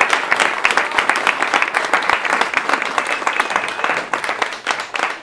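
Audience applauding, many people clapping at once, the clapping thinning out near the end.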